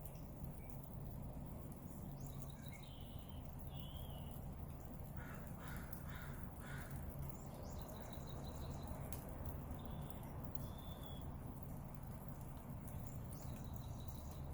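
Outdoor ambience of birds calling: short high chirps here and there, and a run of four harsh calls about five to seven seconds in, over a steady low rumble.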